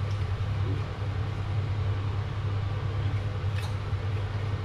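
Steady low machine hum, with a faint click about three and a half seconds in.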